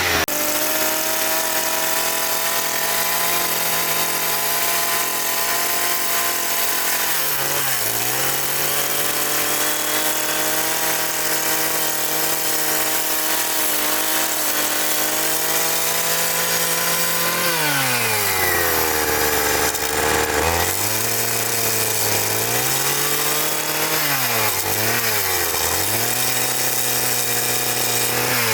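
Small engine-powered tool running steadily. Its pitch drops and recovers about a third of the way in, then again several times in the last third as it comes under load.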